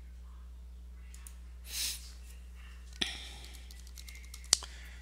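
Computer keyboard keys clicking as a short password is typed, ending with one louder sharp click. A brief breath-like hiss comes just before, over a steady low hum.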